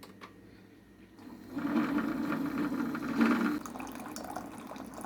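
Liquid pouring and running down, starting about a second and a half in, strongest for about two seconds and then easing off.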